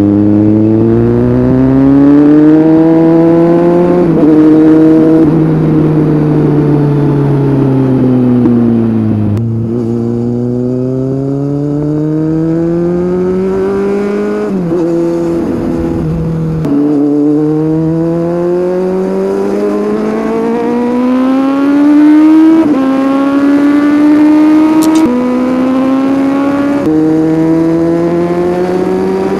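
Kawasaki Z800's inline-four running through a Scorpion aftermarket exhaust under acceleration. The pitch climbs and drops back at each upshift, several times over. About a third of the way in the engine falls off as the bike slows, then pulls up again.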